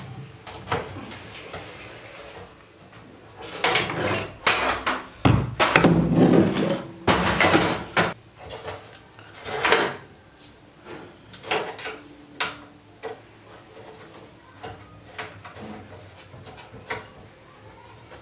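Clicks, knocks and scrapes of a stainless-steel LPG stove and its gas inlet coupling being handled as the rubber gas hose is pushed on and the coupling fitted. The clatter is loudest and busiest between about 3 and 10 seconds in, then thins to scattered light ticks.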